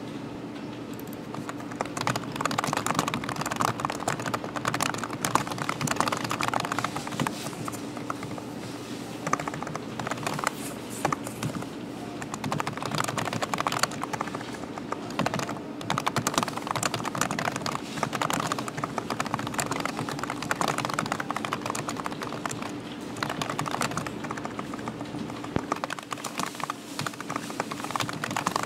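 Fast typing on a computer keyboard: dense, irregular key clicks that begin about two seconds in and run on with a few short pauses, over a steady low hum.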